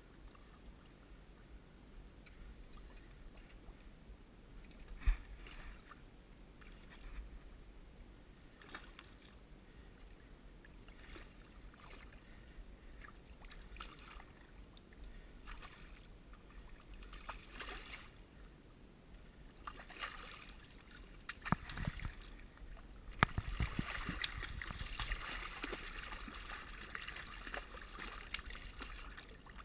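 A hooked steelhead thrashing at the surface of shallow creek water as it is landed by hand, with splashing and water slosh. There are scattered short knocks and sloshes early on, then steady, louder splashing over the last several seconds.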